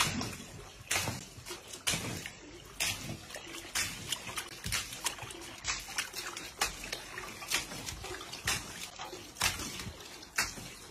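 Water sloshing back and forth in a glass fish tank and splashing over its rim as the tank is shaken by an earthquake, in many irregular splashes.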